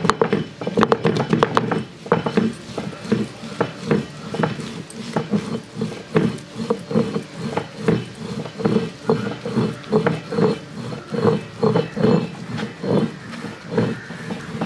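Cylindrical stone roller on a flat grinding stone (ammi kallu), rolled back and forth over wet chilli and spice paste as masala is ground by hand. Rhythmic grinding strokes about two a second, with sharper clicks in the first couple of seconds.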